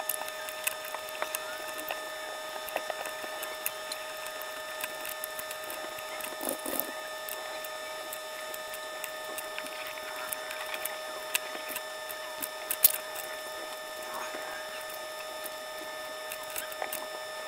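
Irregular small clicks and clinks of Meccano metal parts (strips, plates, nuts and screws) being handled and set down during disassembly, one sharper clink about 13 seconds in, over a steady hum.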